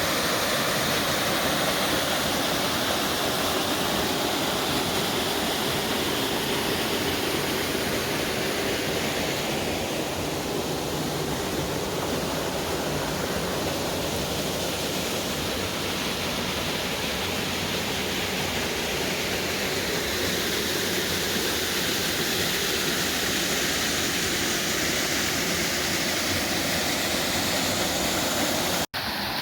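Waterfall's steady rush of falling water, an even noise that cuts off briefly near the end.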